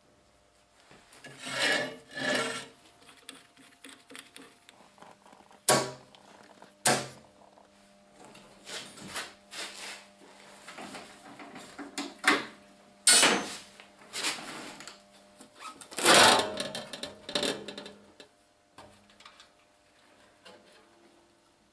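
Workshop handling noises from work on a bench drill press: metal parts and tools knocked, shifted and scraped, with two sharp clacks about six and seven seconds in and a louder scraping rub around sixteen seconds. A faint steady hum runs underneath and stops near the end.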